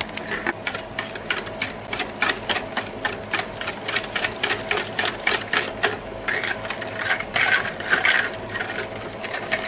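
Wire whisk beating eggs, sugar and flour in a glass bowl, the tines clicking rapidly against the glass at about four to five strokes a second as the batter is whisked smooth.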